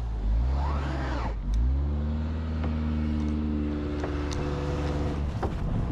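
Car engine revving as the car sits stuck in deep snow packed around its tire. The revs rise and fall about a second in, then climb and are held high and steady for a few seconds.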